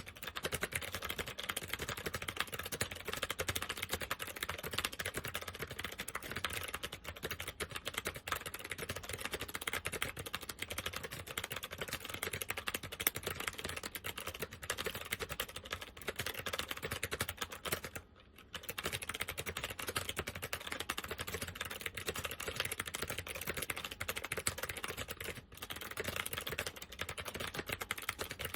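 Continuous fast typing on an SMK 2269 keyboard with second-generation SMK clicky switches: a dense stream of key clicks with one short pause about two-thirds of the way through. The switches are in less than great condition and uncleaned.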